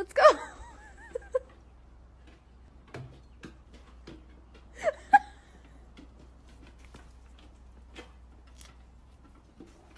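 Golden retriever whining in short high-pitched cries that waver in pitch, once just after the start and again about five seconds in.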